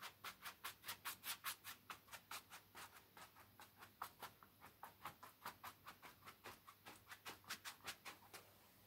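Brush strokes on a canvas: quick, even scratchy strokes, about four or five a second, as paint is scrubbed on.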